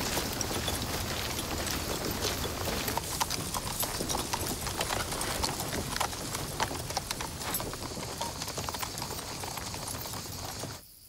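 Horses' hooves clopping on a dry, stony track amid the footsteps of a marching column, a dense run of many overlapping clops and crunches. It stops abruptly near the end.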